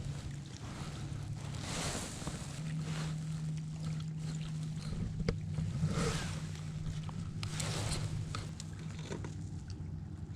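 Swishes and light clicks from moving about on a fishing kayak, over a steady low hum.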